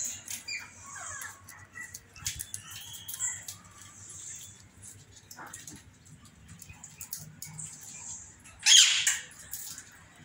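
Aviary birds calling: scattered high chirps and short clicks, then one loud, harsh squawk about nine seconds in.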